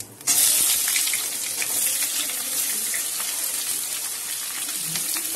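Onions tipped into hot oil in a kadai set off a loud, steady sizzle. It starts suddenly a moment in.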